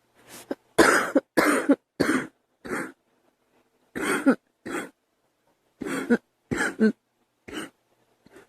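A girl coughing in bouts: about five coughs, a pause, two more, a pause, then three.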